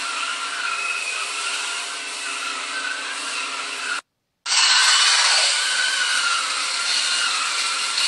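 Endermology machine running: a steady whir from its suction pump and motorised roller head. It breaks off briefly about four seconds in and comes back louder.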